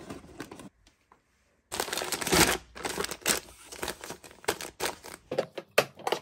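Plastic food packets crinkling and rustling as they are handled and shuffled in a pantry drawer: a dense burst of crinkling a couple of seconds in, then a run of short separate rustles and light knocks.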